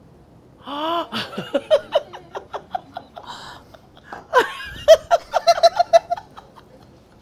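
Several women laughing heartily in rapid, pulsing bursts, loudest about four to six seconds in.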